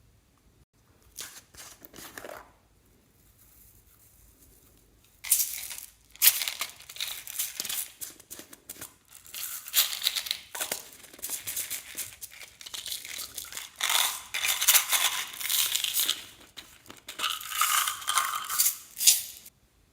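Clear slime being kneaded and stretched by hand, giving dense, sticky crackling clicks. A brief bit of it comes about a second in, then it runs nearly continuously from about five seconds in until just before the end.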